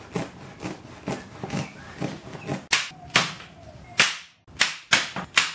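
Scissors snipping through carpet in a quick run of short cuts. From about halfway on, a corded electric staple gun fires several sharp cracks, fixing the carpet to a wooden trestle top.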